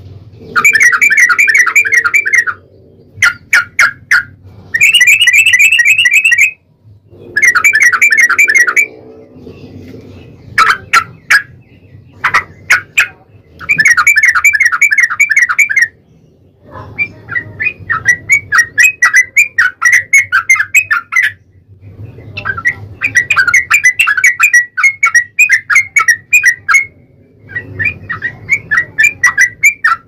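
Yellow-vented bulbul song: loud, rapid bubbling phrases of quick notes, each a second or two long with short pauses and a few single sharp notes between, running into longer strings of fast staccato notes in the second half.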